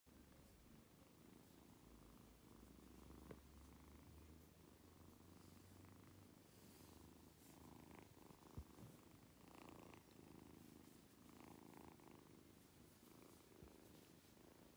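A two-month-old kitten purring softly and steadily.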